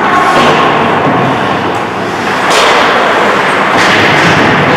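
Ice hockey play in a rink: skate blades scraping and carving on the ice over a steady, loud rush of noise, with two sharper scrapes a little after halfway and near the end.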